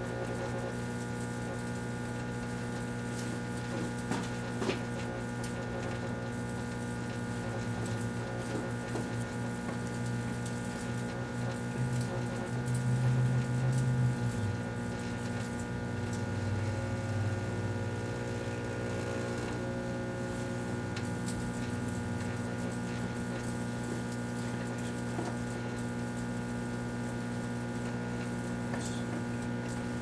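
Kenmore microwave oven running with a steady electrical hum. A couple of faint clicks come about four seconds in, and a louder buzz swells twice, from about twelve to fourteen seconds in and again a little after sixteen seconds.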